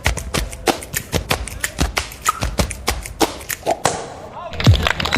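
Rapid, irregular sharp taps, several a second, with a brief lull about four seconds in; music with a low thumping beat starts near the end.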